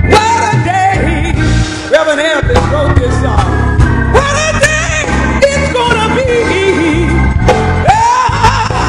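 A woman singing a gospel solo into a microphone, holding long, sliding notes with a wavering vibrato over organ and band accompaniment.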